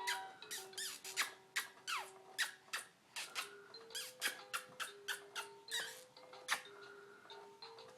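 A simple electronic toy-style tune of plain beeping notes, stepping between two low pitches, with many short high squeaks and chirps over it, several falling in pitch.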